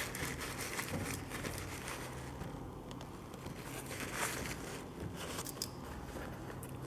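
Faint rustling and crinkling as a sneaker is handled and turned over, with a few brief louder rustles, over a steady low hum.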